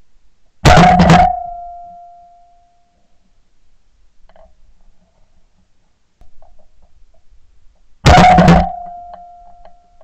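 Two shotgun shots at small birds in flight, recorded from a camera mounted on the gun: one under a second in and a second about seven seconds later. Each blast is followed by a ringing tone that fades over a second or two.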